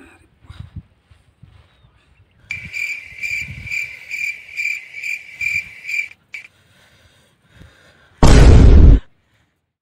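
Cricket chirping, dubbed in as a sound effect: a steady high chirp pulsing about three times a second that starts and stops abruptly after a few seconds. Near the end comes a sudden, very loud burst of noise lasting under a second.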